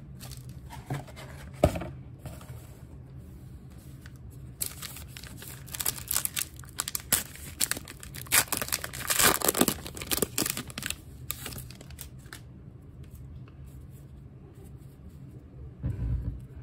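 A trading-card pack wrapper being torn open and crinkled by hand. There is a dense stretch of tearing and crackling from about four and a half to eleven seconds in, with scattered rustles and clicks around it.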